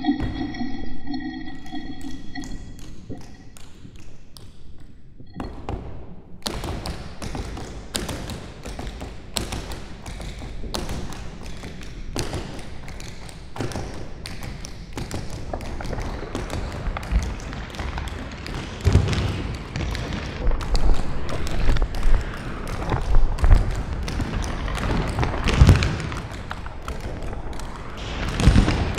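Live contemporary ensemble piece with percussion and electronics: a held chord of steady tones stops about two seconds in, and after a short lull gives way to dense crackling taps and clicks, joined by heavier low thumps in the second half.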